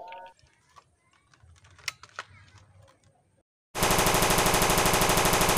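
Machine-gun firing sound effect of a toy M790 rifle: after a quiet stretch with a few faint clicks, one burst of rapid, evenly spaced shots starts abruptly about two-thirds of the way in and runs about two seconds before cutting off.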